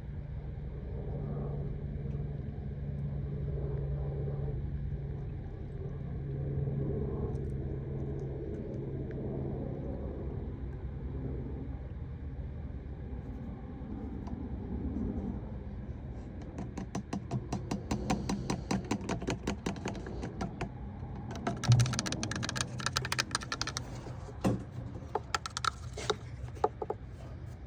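A steady low rumble, like a car engine idling, runs throughout. From a little past halfway, quick runs of evenly spaced sharp clicks come in spurts, densest about three-quarters of the way through, in the manner of a ratchet wrench being worked.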